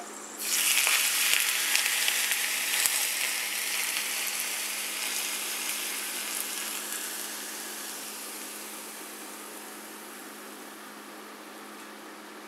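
Hot vegetable oil poured over chopped scallion and ginger, sizzling as soon as it hits. The sizzle starts suddenly and is loudest at first, then fades slowly over several seconds as the oil cools.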